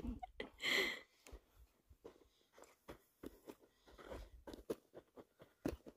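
Faint, scattered light crunches and knocks as wooden sticks are shifted and set in place to line up a makeshift stick grill frame, with one slightly louder knock near the end.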